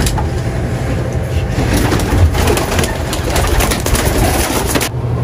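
Racing pigeons cooing, with many quick clicks and rustles among them.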